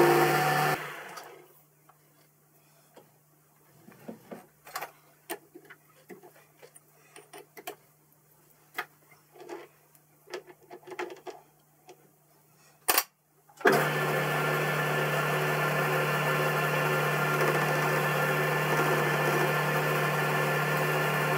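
Boxford lathe running with the steel block spinning in the four-jaw chuck, switched off about a second in and spinning down. Then small clicks and knocks of the block being handled and reset in the chuck jaws, a sharp click, and the lathe motor starts again about two-thirds of the way through and runs steadily.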